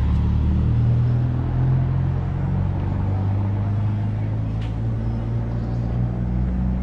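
Vehicle engine running at a steady cruise, heard from on board while driving along a road: a low, steady hum.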